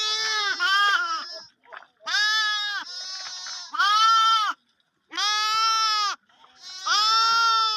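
Lambs bleating: about six high, wavering calls, some overlapping or back to back, with short gaps between them.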